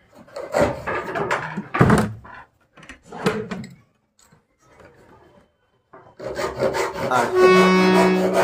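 A wooden harmonium being handled, with wood rubbing and knocking in short bursts as its bellows and fittings are worked. Near the end, one steady reed note sounds for about a second.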